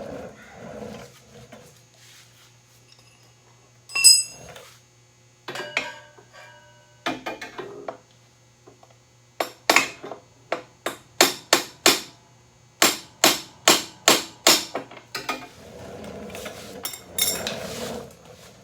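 A small hammer tapping on steel: about fifteen sharp metal taps at roughly three a second, after a single loud ringing clank of metal about four seconds in and a few lighter clinks.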